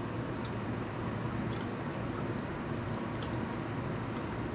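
Faint, scattered small metallic clicks of hand tools on an ATV engine's valve gear over a steady background hiss, as the valve clearance is being set with a feeler gauge.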